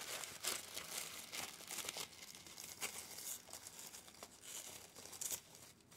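Faint crinkling and rustling of tissue paper being handled and unwrapped by hand, with light tearing as the paper and its sticker are pulled apart.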